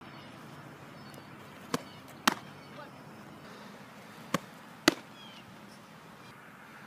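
Two fastpitch softball pitches. Each has a lighter snap at the delivery, then about half a second later a louder pop as the ball smacks into the catcher's glove.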